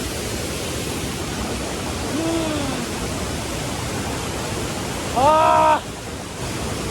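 Waterfall rushing, a steady wash of falling water. A short pitched sound comes about two seconds in, and a louder held pitched call of about half a second comes about five seconds in, the loudest thing here.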